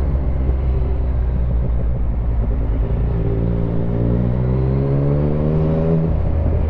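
Yamaha MT-09 three-cylinder motorcycle engine running under the rider. Its pitch climbs steadily for a few seconds as it accelerates, then drops abruptly about six seconds in and settles.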